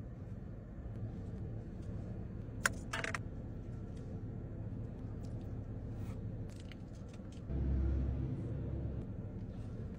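Steady low hum of a car's engine idling, heard inside the cabin. A couple of sharp clicks come about three seconds in, and a louder low rumble swells for a second or so near the end.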